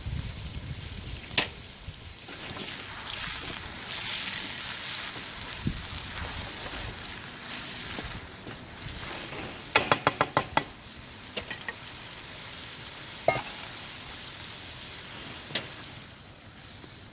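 Food sizzling as it fries in hot oil in a pan while being stirred, with sharp taps of a utensil on the pan: a single one early, a quick run of about six near the middle, and a few more later.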